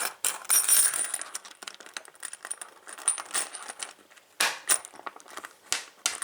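A small Testrite padlock being unlocked with its key: a run of sharp metallic clicks, scrapes and clinks from the key, lock body and shackle, with a louder snap about four and a half seconds in and another near the end.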